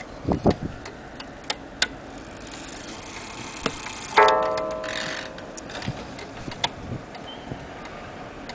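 Antique German H.A.C. strike wall clock ticking, then striking once about four seconds in: a single ringing strike that dies away over about a second, the one-o'clock strike after the minute hand is pushed to twelve. There are a few soft handling knocks near the start as fingers move the hand.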